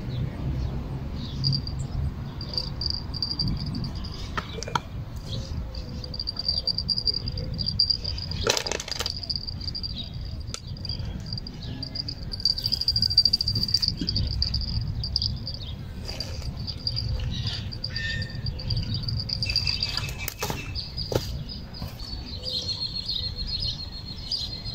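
An insect trilling steadily at a high pitch, over a low rumble, with a couple of brief knocks and rustles.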